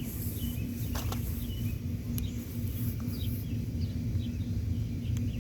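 Small birds chirping in short repeated calls over a steady low outdoor rumble and a faint steady hum.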